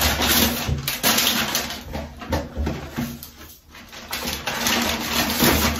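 Hands working hair up into a bun close to the microphone: rustling and scratching in irregular bursts.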